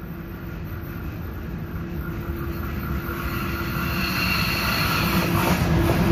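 EP1M electric locomotive with a passenger train approaching, growing steadily louder as it nears. A steady whine comes in about halfway through, and there is a brief clack near the end as the locomotive draws level.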